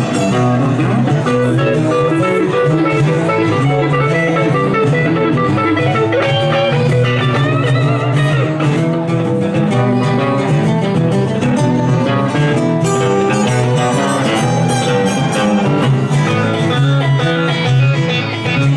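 Live guitar trio: two acoustic guitars and a Telecaster-style electric guitar playing a song together.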